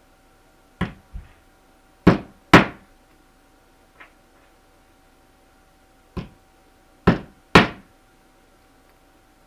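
Hammer driving nails through a beaver hide into a wooden board: about eight sharp blows in three groups, each group starting with a lighter tap and ending with harder strikes. The loudest blow comes about two and a half seconds in.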